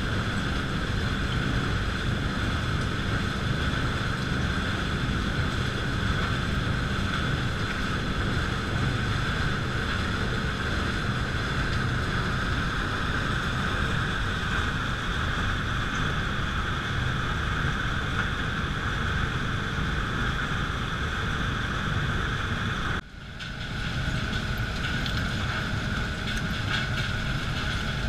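Steady drone of a waste-sorting plant's machinery running: the windshifter air separator and its conveyor belts carrying shredded refuse. About 23 seconds in the sound drops out briefly, then comes back with a slightly different tone.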